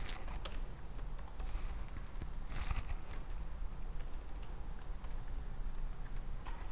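Typing on a computer keyboard: irregular keystroke clicks at a steady pace, over a steady low hum.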